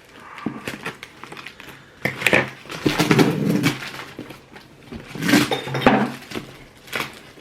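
Packing tape being ripped off a cardboard shipping box and the box being pulled at, in several rough bursts of tearing and rustling with scattered sharp clicks. The loudest stretches are about two to three and a half seconds in and again around five to six seconds in.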